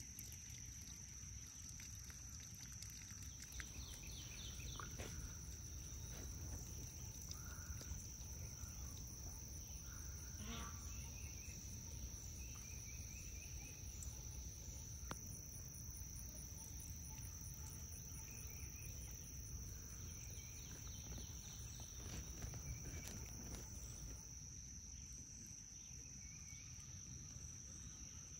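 Insects chirring steadily in a high, even pitch, with a faint fast pulsing above it.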